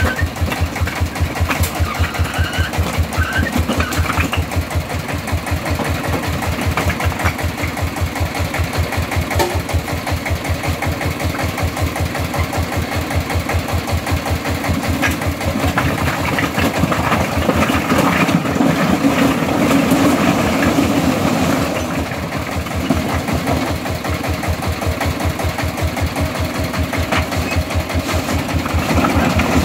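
Single-cylinder diesel engine of a homemade three-wheeled công nông tipper running with a fast, even thudding beat while its bed is raised to dump bricks, a little fuller for a few seconds past the middle. A few knocks come from bricks sliding off the tipped bed.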